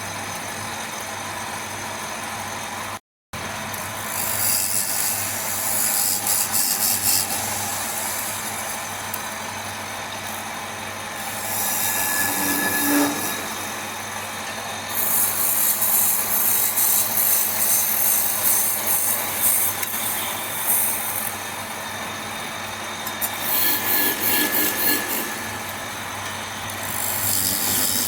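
Wood lathe running with a steady hum, while a tool works the spinning wood in repeated spells of high scraping lasting a few seconds each. The sound drops out completely for a moment about three seconds in.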